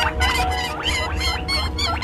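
Baby chicks chirping: many quick, overlapping peeps, several a second, over steady background music.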